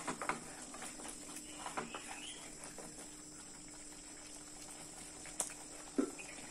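Thick garlic chutney paste spluttering and popping in a pan as it cooks down, with a wooden spatula stirring through it at first. Scattered small pops, busiest in the first couple of seconds, then two sharper pops near the end.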